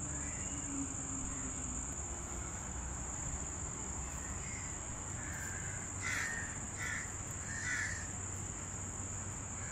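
Steady high-pitched insect drone, with three short bird calls about six to eight seconds in.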